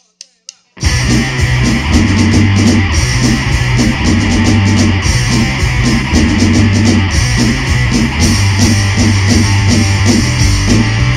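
Punk rock band recording starting up: a few quick clicks, then distorted electric guitars, bass and drums come in together less than a second in and play on at full volume.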